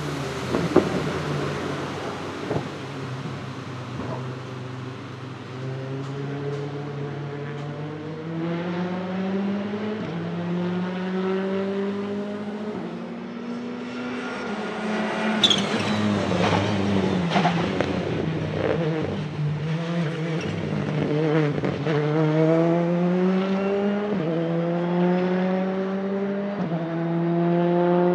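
Citroën C3 R5 rally car's 1.6-litre turbocharged four-cylinder engine accelerating through the gears, its pitch climbing and dropping back at each of several upshifts. A sharp crack about halfway through.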